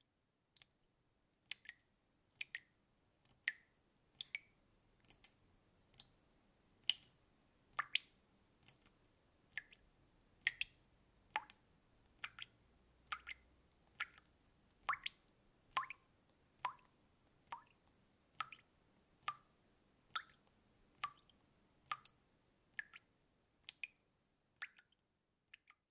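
Water dripping: single drops fall at an uneven pace of roughly one a second, each a short, sharp drop sound.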